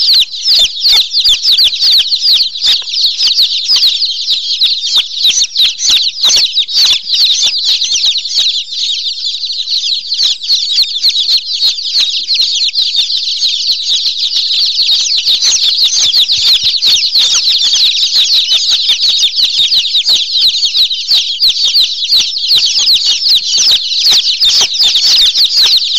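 Many small birds chirping and peeping at once in a dense, unbroken chorus of rapid high-pitched calls, thinning slightly partway through before filling in again.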